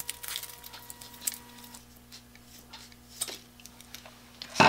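Scissors snipping blue masking tape wrapped around a small part, with scattered light clicks of the blades and tape, and one louder cut right at the end. A faint steady hum runs underneath.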